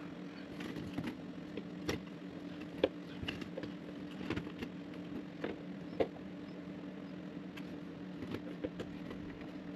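Scattered small clicks and scrapes of a hand screwdriver driving small junction-box screws into a wall thermostat's mounting plate, over a steady low hum. The sharpest clicks come a little under 3 s in and at about 6 s.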